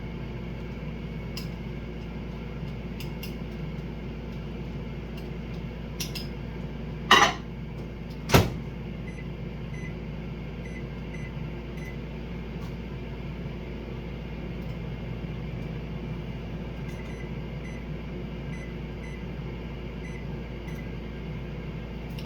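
Microwave oven running with a steady hum as it heats a bowl of food, with two sharp knocks about seven and eight seconds in.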